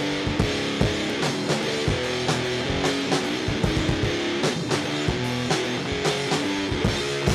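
Rock band playing an instrumental passage between sung lines: strummed guitar over a drum kit keeping a steady beat.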